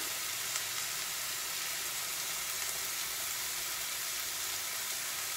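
Chicken breasts frying in a cast iron skillet: a steady, even sizzle.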